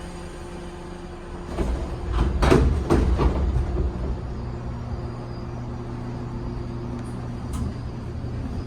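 Inside a 415 series electric train: steady running hum, broken about one and a half seconds in by a loud cluster of clattering knocks lasting about two seconds.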